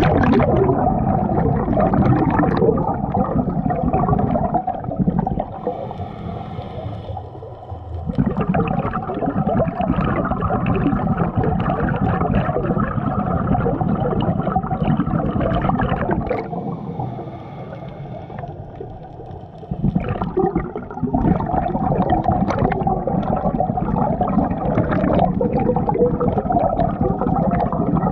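Scuba regulator exhaust bubbles gurgling and rushing underwater, close to the diver's own head, in long exhalations. They are broken twice by quieter pauses for inhaling, in which a faint hiss from the regulator shows.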